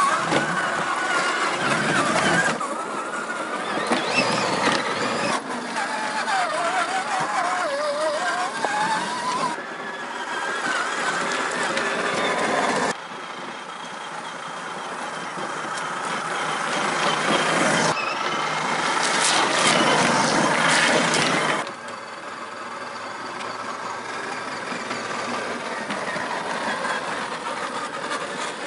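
Scale RC crawler's electric motor and geared drivetrain whining as it drives over a wet rocky trail, the pitch rising and falling with the throttle. The sound changes abruptly several times.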